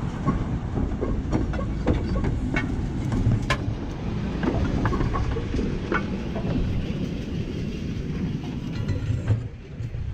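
PCC streetcar rolling past on its track: a steady low rumble with scattered sharp clicks from the wheels and rails. The rumble drops off near the end as the car moves away.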